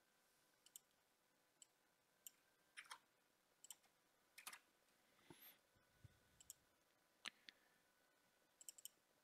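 Faint computer mouse clicks, some single and some in quick double pairs, at irregular intervals against near silence.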